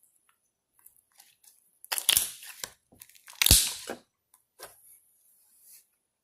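Homemade glue slime being handled and squished, with two louder bursts of noise about two and three and a half seconds in and smaller ones around them.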